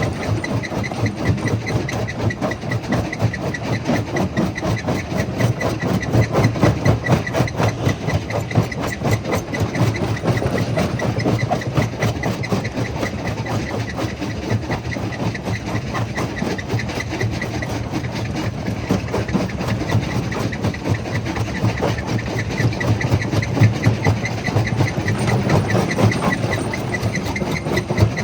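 Jaw crusher running and crushing stone: a steady heavy machine sound with a dense, continuous clatter of rock being broken.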